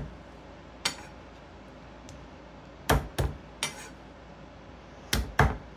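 Garlic cloves being smashed and cut with a chef's knife on a wooden cutting board: six sharp knocks, one about a second in, three close together in the middle and two near the end.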